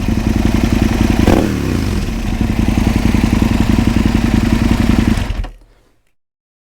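Aprilia RSV Mille R's 998 cc V-twin engine running with a regular lumpy pulse. It is blipped once about a second in, the revs dropping straight back. The sound then stops about five and a half seconds in.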